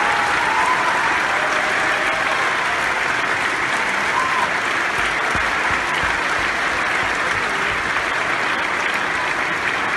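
Large theatre audience applauding steadily at a curtain call, many hands clapping together without let-up.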